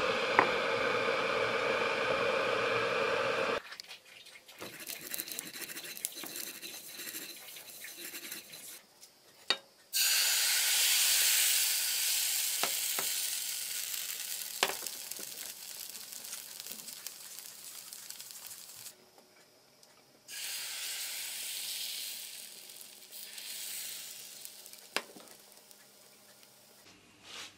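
Electric kettle heating with a steady hiss and hum for the first few seconds, then cut off. Pancake batter sizzling in a hot frying pan, starting loud about ten seconds in and slowly fading, with a second sizzle about twenty seconds in and a few sharp taps between.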